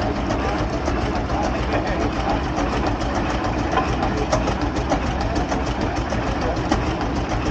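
Antique crawler tractor's exposed engine idling steadily with a fast, even beat.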